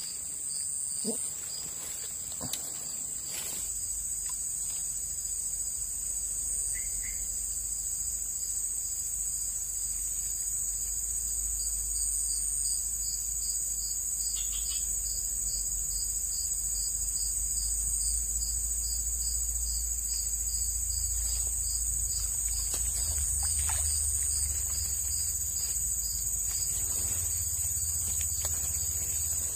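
Steady, high-pitched chorus of insects with a fast, even pulsing trill, over a low rumble. A few soft knocks come in the first few seconds.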